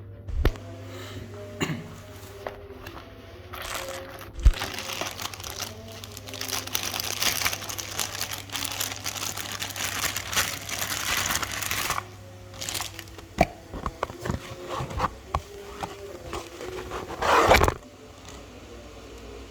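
Close handling noise: scattered clicks and knocks, a stretch of crinkling in the middle, and a louder scraping rush near the end, over a steady low hum.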